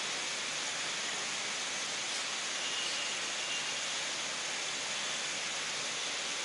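A steady, even hiss of background noise with no speech.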